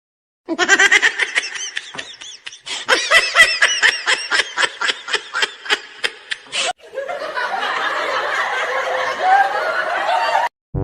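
Laughter in short separate clips with abrupt gaps between them: a drawn-out wavering laugh, then a run of rapid ha-ha pulses, about five a second, then a steadier, noisier stretch of laughing.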